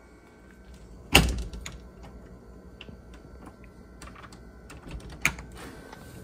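Light clicks and knocks of objects being handled, with one loud knock about a second in and another sharp click near the end.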